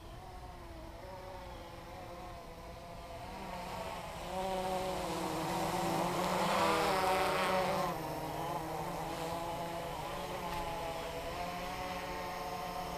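Blade 350 QX quadcopter's motors and propellers buzzing in flight, the pitch wavering as it manoeuvres. It grows louder about four seconds in, is loudest around seven seconds as it passes close, then settles to a steadier buzz.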